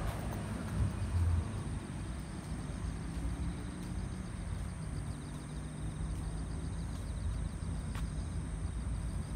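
Steady rumble of city road traffic, with the low hum of passing engines, and faint insects chirping.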